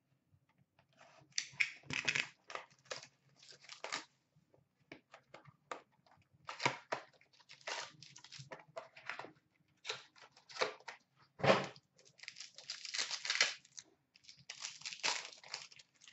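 Hands tearing open a cardboard trading-card box and crinkling the pack wrapping inside, in irregular bursts of tearing and crackling. The bursts come thickest about three-quarters of the way through.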